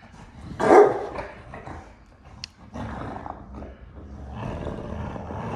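Two dogs play-fighting and growling at each other: a loud snarl about a second in, then continuous rough growling that builds toward the end. The growls sound vicious, but it is rough play, not a real fight.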